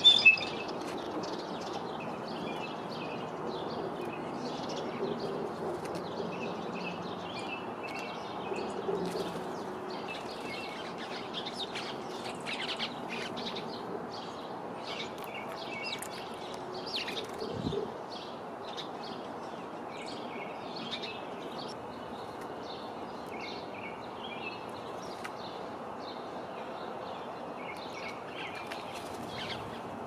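Small birds, sparrows among them, chirping in short repeated notes over steady outdoor background noise. A sharp loud click comes right at the start and a single low thump a little past halfway.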